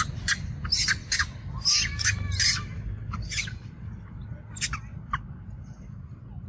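Macaque screeches: a run of short, harsh squeals, crowded in the first three seconds with a couple more around five seconds in, over a steady low rumble.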